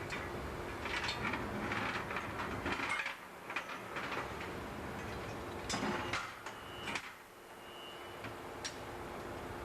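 Metal clanks, knocks and scrapes of tools and heavy engine parts being handled during a marine two-stroke engine's main bearing overhaul, with a few brief high squeaks, over a steady machinery hum.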